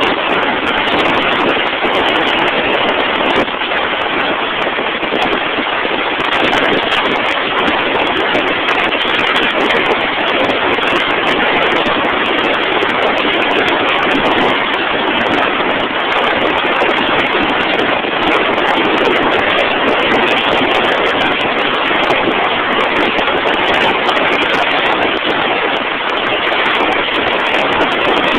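Drill rig machinery running: a loud, steady mechanical noise with no distinct rhythm or change.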